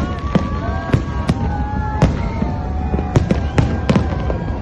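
A fireworks display going off: sharp bangs about twice a second over a steady low rumble, with several whistling tones that glide and bend in pitch.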